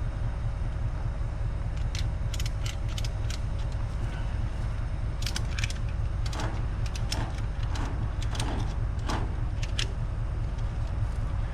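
A steady low rumble with scattered light metallic clicks and clinks, in small clusters through the middle of the stretch, like hardware being handled.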